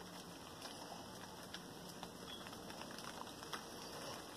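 Steady rain falling at night, a faint even hiss with scattered drops ticking close by.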